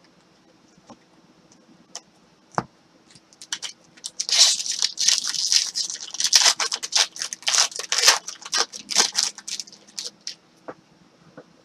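A foil trading-card pack wrapper being torn open and crinkled by hand: a dense run of sharp crackling from about four seconds in, lasting about six seconds, with a few light clicks and taps before and after.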